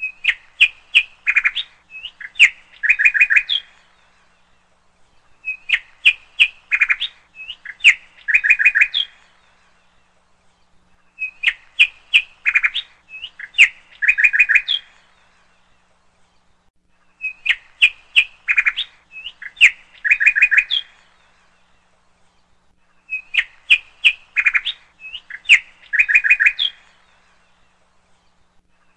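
Bird chirping in a looped background track: the same phrase of quick, bright chirps and trills, about four seconds long, repeats identically about every six seconds, with near quiet between repeats.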